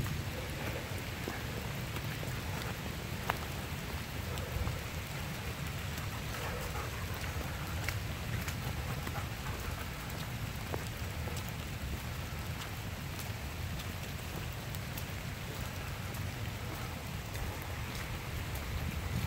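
Steady rain falling on forest leaves, with scattered drops ticking close by.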